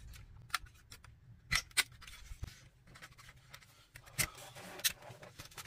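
Hands working the plastic casing and internal parts of a router apart: a handful of sharp plastic clicks spaced irregularly, with light scraping and rubbing between them.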